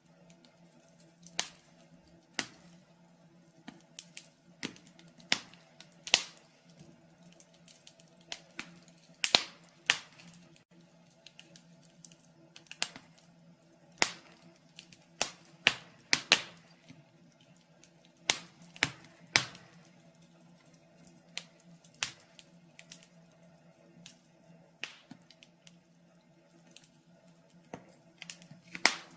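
Wood fire crackling in a fireplace: irregular sharp pops, some louder than others, a few every couple of seconds, over a faint steady low hum.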